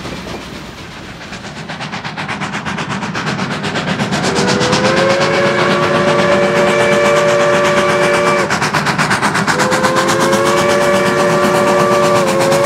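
Crosby three-chime steam whistle on narrow-gauge locomotive D&RGW No. 482 blown in two long, steady blasts, a three-note chord, the second blast starting about a second after the first stops. Underneath is a rhythmic, pulsing train sound that grows louder before the whistle starts.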